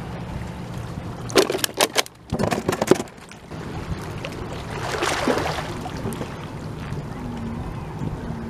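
A quick run of sharp knocks and clatters around a plastic cooler about a second in, with the freshly caught snapper going into it. Behind it, small waves lap against shoreline rocks with wind on the microphone, swelling briefly about halfway through.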